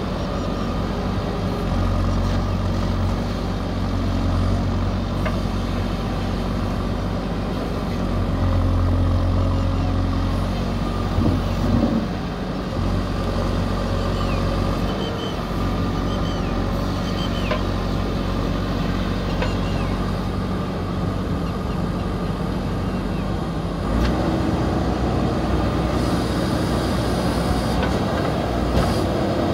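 JCB 3DX backhoe loader's diesel engine running under working load as the backhoe digs, with a brief dip in the middle and a rise to higher revs near the end.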